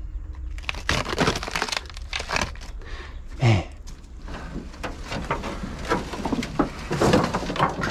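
Crackling and rustling of dry brush and leaves, with many scattered sharp snaps. A brief low falling sound comes about three and a half seconds in.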